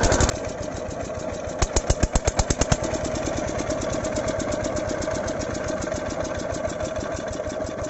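Stationary diesel water-pump engine running with a fast, even beat of about eight pulses a second. The beat is briefly louder about two seconds in.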